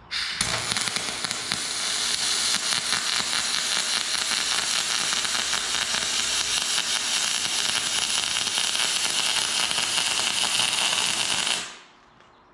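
MIG spool-gun welding on heavy aluminum plate: the arc gives off a steady, loud crackling sizzle while one continuous bead is run, ending abruptly when the trigger is released near the end.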